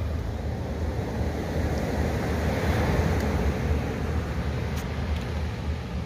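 Steady wind noise with a low rumble on the microphone over the wash of surf, swelling a little about two to three seconds in.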